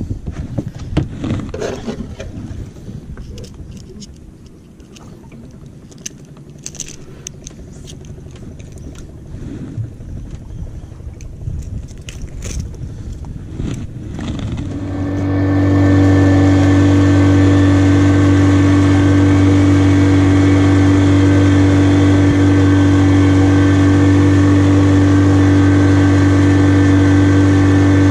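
Knocks and scrapes of things being handled, then about halfway through a boat engine comes up to speed over a second and runs loud and steady.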